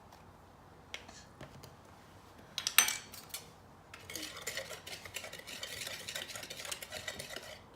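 A utensil clinks sharply against a small bowl, then from about four seconds in a whisk stirs dry cake ingredients (flour, sugar, baking powder, cinnamon) in the bowl with a quick run of scraping and tapping.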